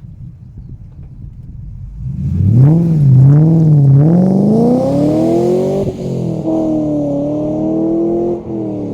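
Ford BA Falcon XR8's Boss 260 5.4-litre V8 through Pacemaker 4-into-1 headers, hi-flow cats and a twin Xforce exhaust. It idles, then is blipped a few times about two seconds in, climbs to a higher rev that is held for a couple of seconds, and drops back near the end.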